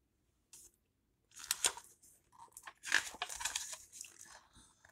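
Pages of a picture book being turned and handled: a brief paper rustle about a second and a half in, then a longer stretch of rustling and crinkling from about three seconds in.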